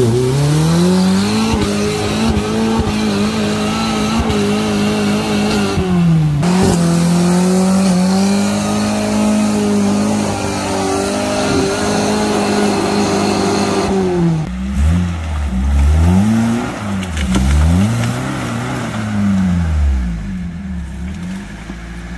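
Suzuki Samurai engine working hard under load as the jeep climbs a muddy bank, held at high revs with two brief dips, then revved up and down over and over in the last several seconds.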